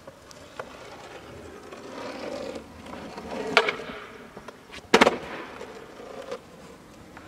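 Longboard wheels rolling on asphalt, with a sharp clack about three and a half seconds in and a louder double clack about five seconds in as the flipped board slaps down on the pavement.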